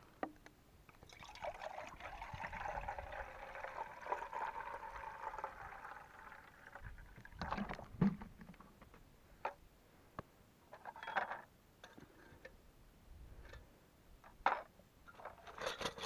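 Water poured into an aluminium teapot for about five seconds, filling it, followed by a series of short clinks and knocks as gear is handled.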